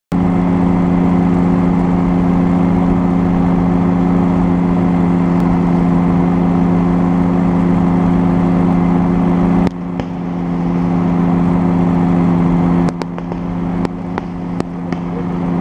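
Paratrike's Rotax 503 two-stroke engine and propeller running steadily at cruise power, throttled back suddenly about ten seconds in and again near thirteen seconds. In the last few seconds a string of sharp cracks sounds over the lower engine note: fireworks bursting.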